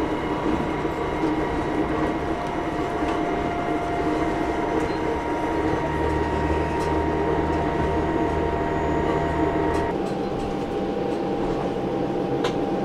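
Interior noise of a KTR8000 diesel railcar on the move: a steady low rumble of engine and wheels on rail, with a steady mechanical hum. About ten seconds in the hum drops in pitch and the low rumble eases, as the engine or transmission changes speed. There is a single sharp click near the end.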